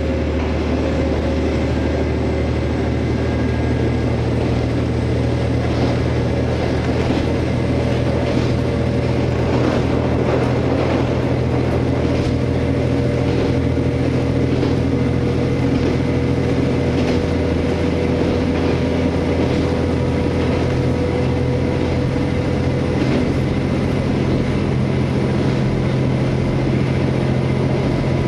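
Engine of a KiHa 47 diesel railcar running steadily under way, heard inside the passenger car, over the rumble of wheels on rail with a few faint clicks. The engine note shifts slightly about two-thirds of the way in.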